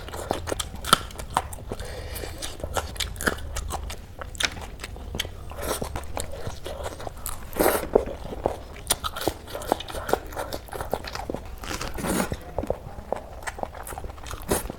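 Close-miked eating: irregular bites, crunches and chewing, with wet mouth clicks, over a low steady hum.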